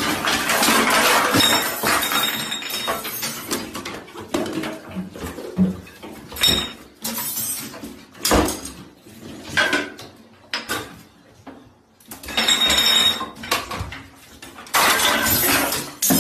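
Toiletries, bottles and brushes clattering and knocking on a hard sink counter and bathtub as cats knock them off. Several bursts of rattling clatter with sharp knocks between.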